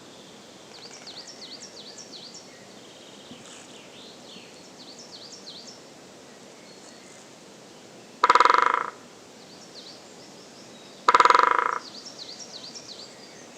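Great spotted woodpecker drumming: two short, very rapid rolls of bill strikes on wood, about 8 and 11 seconds in. This is spring drumming, done to attract a mate and to stake out territory. Small birds chirp faintly behind it.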